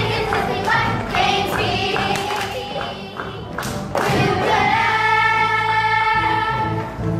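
A group of children singing a song together over music with a steady beat, holding one long note in the second half.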